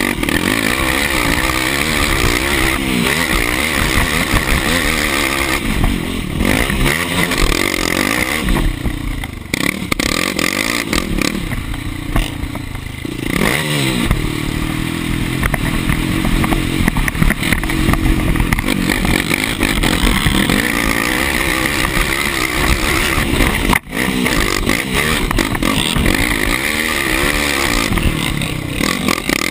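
Yamaha sport quad's engine heard from its onboard camera, revving up and falling off again and again as it accelerates out of corners and over the track. It eases off for a few seconds around nine to thirteen seconds in, and the sound cuts out for an instant about 24 seconds in.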